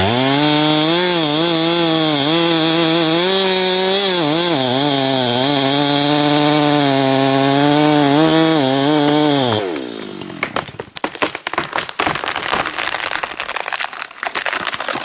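Chainsaw running at high revs, its pitch dipping briefly a few times, then falling away about ten seconds in. A rapid, irregular run of cracks and snaps follows.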